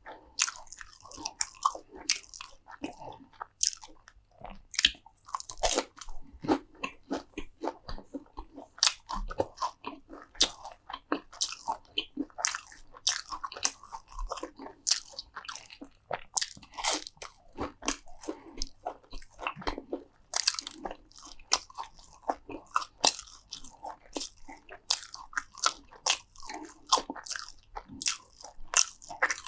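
Close-miked eating: crisp food being bitten and chewed, a steady stream of sharp crunches several times a second, with wet mouth sounds between them.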